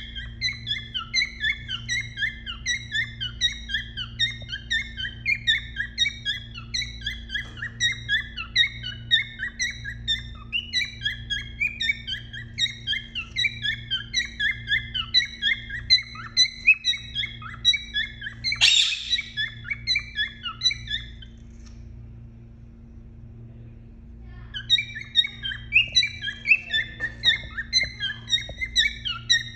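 Male cockatiel singing its courtship song to a female in the nest box: a fast string of repeated chirping whistles, about three a second, over a steady low hum. There is one brief louder burst about two-thirds in, then a pause of a few seconds before the chirping starts again.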